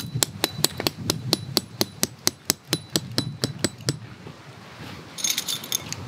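Rapid hammer strikes driving a metal tent peg into the ground, about four to five a second, each with a short metallic ring; they stop about four seconds in. Near the end, a brief burst of metal clinking as the peg and its guy line are handled.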